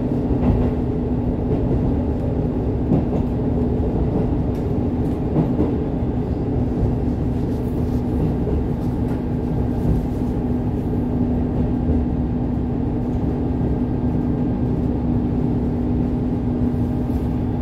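Steady engine hum and low rumble of a diesel railcar heard from inside the car as it pulls into a station, with a few faint clicks.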